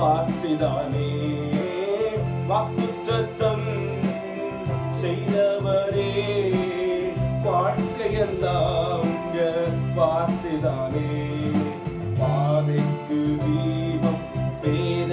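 A man singing a Christian devotional song, accompanying himself on an electronic keyboard with sustained chords, a bass line and a steady beat.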